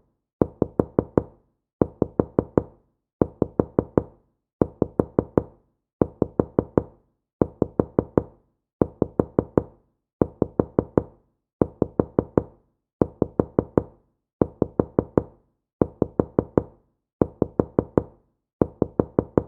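Soft knocking on a wooden door: quick runs of about five raps, repeated about every second and a half in an even pattern.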